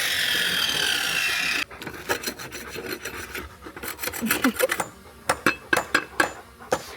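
A steady machine noise cuts off abruptly about a second and a half in. After that comes a run of short scrapes and sharp knocks: digging in dirt and gravel.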